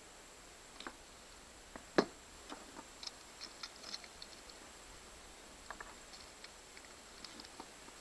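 Small plastic clicks and taps as a handheld trolling-motor remote's plastic case is handled and pried open, with one sharper knock about two seconds in.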